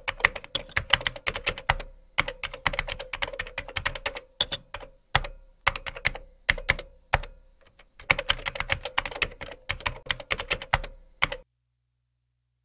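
Computer keyboard typing sound effect: rapid, irregular key clicks in runs, with short breaks about two seconds and seven seconds in, stopping shortly before the end.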